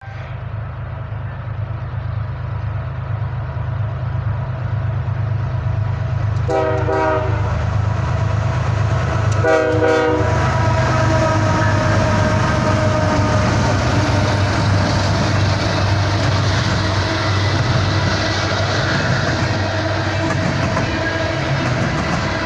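A BNSF freight train led by a GE ES44AC locomotive draws near. Its engines rumble steadily, growing louder over the first ten seconds, and its air horn gives two short blasts about three seconds apart. The train then runs on at a steady loud rumble.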